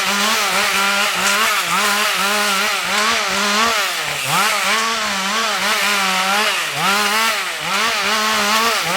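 Ported Husqvarna 562 XP two-stroke chainsaw running at high revs and cutting wood. Its pitch sags and climbs back again and again as the chain loads in the cut, with deeper dips about a second and a half, four seconds and seven seconds in.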